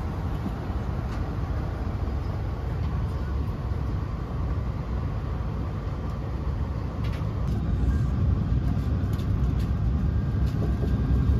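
Steady low rumble of a moving vehicle heard from inside, growing a little louder about eight seconds in.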